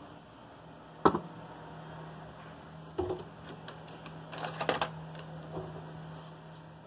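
A tin can and a plastic bottle handled and set down on a workbench: a sharp knock about a second in, another around three seconds in, and a short run of clicks and rattles a little past the middle, over a faint steady hum.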